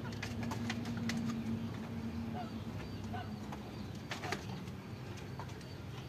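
Farmyard birds in a goose pen: low soft cooing calls, with one low note held for about the first two seconds, and scattered sharp clicks and taps.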